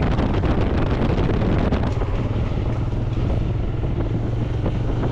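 Wind rushing over the microphone of a motorcycle riding at highway speed, with the engine's steady low drone underneath.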